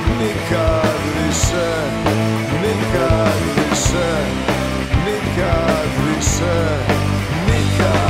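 Alternative rock band playing live in an instrumental passage: electric guitar lines sliding and bending in pitch over sustained bass notes and drums. A bright high accent comes back about every two and a half seconds.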